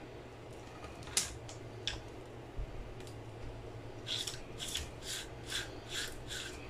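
Two light clicks, then a quick run of about half a dozen short scratchy rubbing strokes, over a steady low hum.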